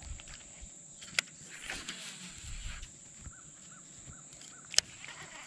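Baitcasting reel during a cast: a sharp click about a second in, a brief hiss of line running off the spool, then another sharp click near the end as the reel is engaged again.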